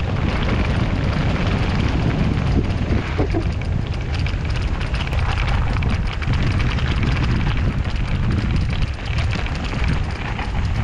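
Mountain bike riding fast down a dirt forest trail: a steady rush of wind on the camera microphone, with the tyres running over dirt and stones and the bike rattling and clicking over the bumps.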